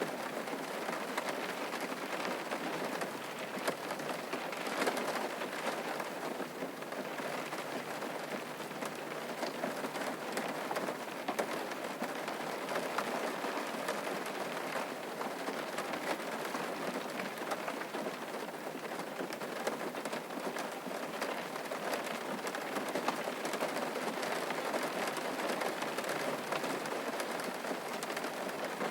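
Steady rain falling, with a dense scatter of small drop impacts over an even wash of noise.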